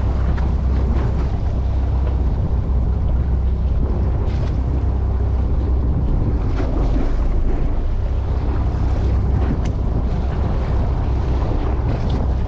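Wind buffeting the microphone aboard a fishing boat at sea, over a steady low rumble and the wash of water.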